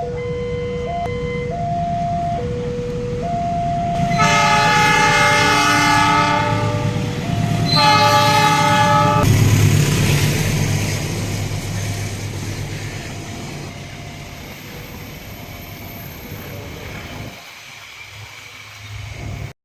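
Level-crossing warning alarm alternating between two notes, then a train horn sounds two long blasts, about four and eight seconds in. A train then rumbles past through the crossing and fades away.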